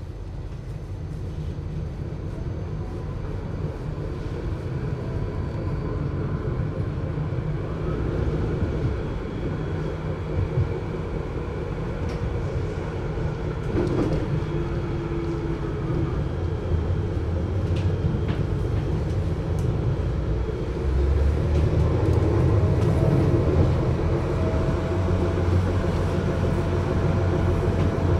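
GT6M low-floor tram running, its traction drive giving a low hum that grows gradually louder, with a faint whine that slowly rises in pitch over the last several seconds as the tram picks up speed. The whole recording is muffled.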